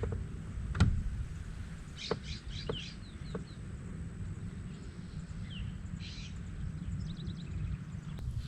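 Small birds chirping in short high calls, scattered through the middle of the stretch, over a steady low rumble, with a few sharp knocks near the start.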